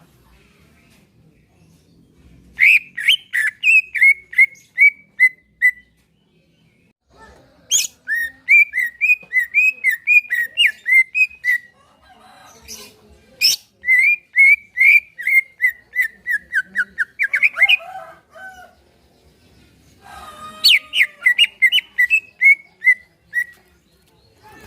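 Green leafbird (cucak ijo) singing in four bursts of rapid, repeated whistled notes. Each run starts loud and slows and fades toward its end.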